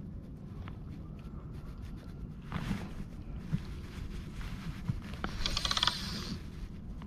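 Low wind rumble on the microphone, with a short scraping rasp about two and a half seconds in and then about a second of rapid fine clicking near the end from handling the fly rod and line.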